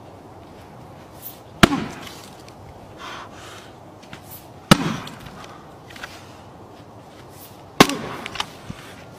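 An axe strikes a log on a chopping block three times, about three seconds apart, each blow a sharp chop. The log splits apart on the third blow.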